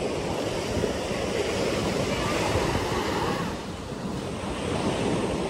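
Sea waves washing onto a sandy beach, a steady surf noise that swells to a peak about halfway through and eases a little after, with some wind on the microphone.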